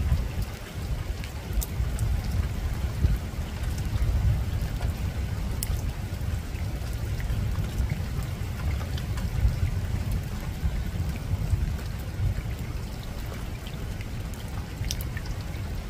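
Steady rain falling on a rooftop, with scattered individual drops ticking sharply over an even hiss, and a continuous low rumble underneath.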